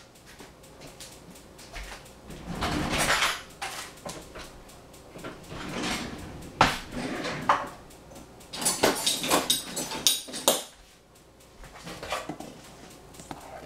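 Aluminium foil crinkling as it is smoothed into a baking dish, then scattered knocks and clatter of kitchen dishes being handled.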